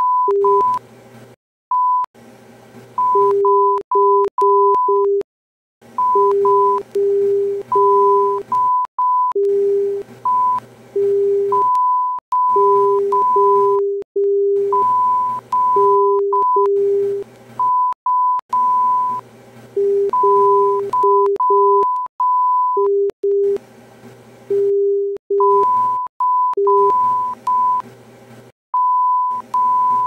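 Morse code sent as electronic beeps: short and long tones (dots and dashes) on two pitches, a high tone and a low tone, taking turns in an irregular pattern. A hiss switches on and off behind the beeps, with short silent gaps.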